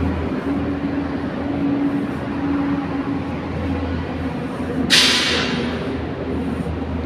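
Machinery droning steadily with a low hum in an underground construction site. About five seconds in, a sudden loud hiss fades away over about a second.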